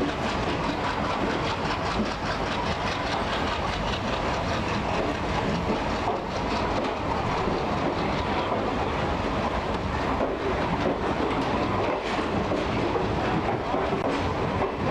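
Express passenger train rolling past as it gathers speed: a steady rumble of the coaches, with the wheels clacking over the rail joints.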